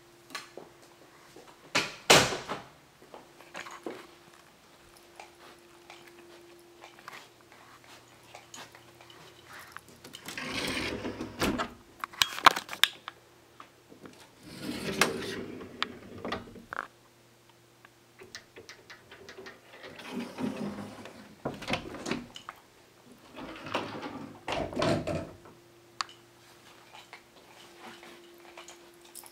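Indoor handling sounds of doors and a closet: a sharp click about two seconds in, then four bursts of rustling and scraping, each a second or two long, over a faint steady hum.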